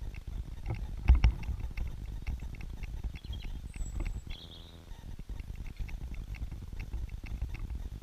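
Great spotted woodpecker pecking: a run of irregular sharp taps, loudest about a second in, over a low rumble. A short high bird call comes twice near the middle.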